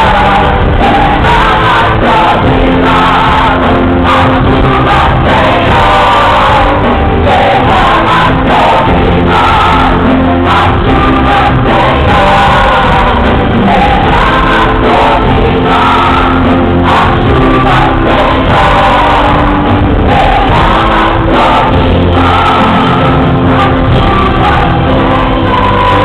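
Live gospel band with lead and choir vocals performing a song, heard loud from within the audience, with crowd voices mixed in.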